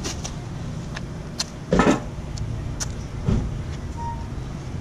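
Rustling and crinkling of a vinyl decal sheet and its paper backing being handled, loudest about two seconds in and again briefly near three and a half seconds, over a steady low rumble.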